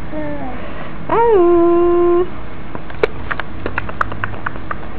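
Baby cooing: one drawn-out 'aah' about a second in that rises, dips and then holds steady for about a second. Near the end there is a run of small soft clicks.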